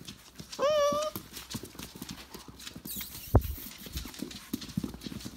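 Tamaskan puppies' claws clicking on a hard wooden floor as they scamper about. A short high squeal rises and then holds about half a second in, and a single thump, the loudest sound, comes about three seconds in.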